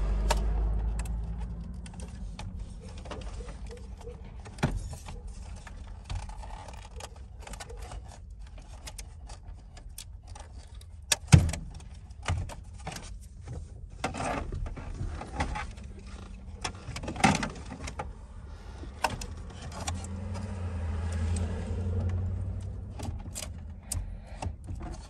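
Clicks, rattles and plastic knocks of hands working a car's instrument cluster loose from the dashboard, with one sharp knock near the middle. A low rumble comes and goes at the start and again near the end.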